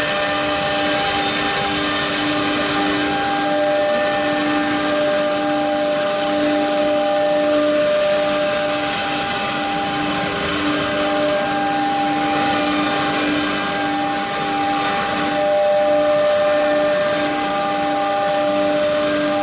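Four-spindle CNC nesting router running: a steady whine with a few held tones over a rushing noise like a dust extractor.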